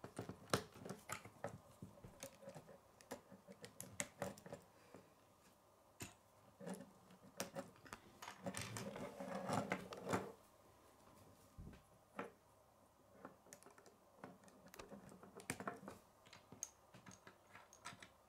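Small plastic K'nex rods and connectors clicking and rattling as they are handled and snapped together, in irregular light clicks with a busier stretch of rattling about nine seconds in.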